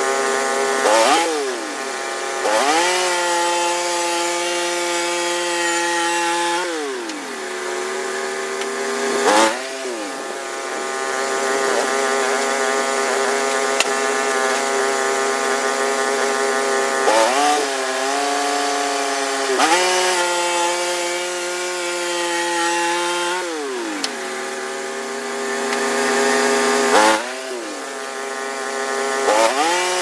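Norwood LumberPro HD36 portable band sawmill running as its band blade saws a red pine log into a squared timber. The engine runs loud and steady, its note dipping and rising again about eight times.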